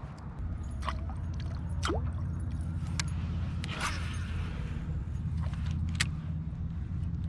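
Baitcasting reel being cranked during a lure retrieve from a kayak, a steady low hum starting just after a click, with a few light ticks and water drips over it.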